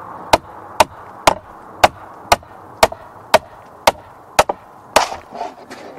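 Hammer blows knocking a cedar siding shingle loose, with the shingle gripped in channel-lock pliers: about ten sharp, evenly spaced strikes, roughly two a second, then a few lighter knocks near the end.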